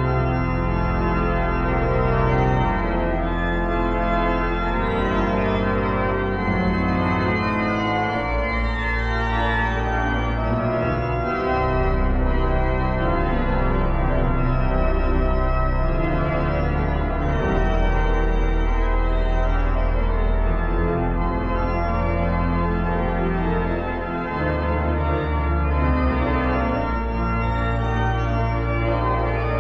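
Sanctuary pipe organ playing a piece: full sustained chords that change every second or so over long-held deep bass notes, at a steady volume.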